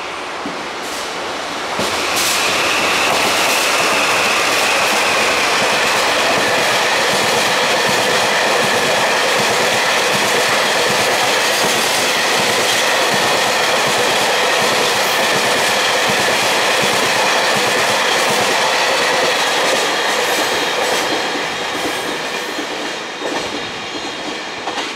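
A train of empty Taki 1000 oil tank wagons rolling past, wheels clattering over the rail joints with a steady high-pitched squeal on the curve. The sound fades out near the end as the last wagon goes by.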